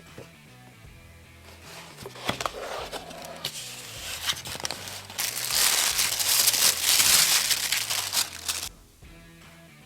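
Packaging being handled and unwrapped: crinkling and tearing, with a loud continuous rustle from about halfway in that stops abruptly near the end. Background music plays underneath.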